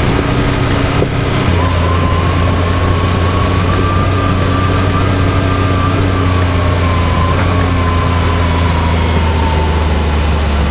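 Can-Am Maverick X3 side-by-side's engine running at an even, steady speed: a constant low drone with a faint whine above it that rises slightly and then eases back down.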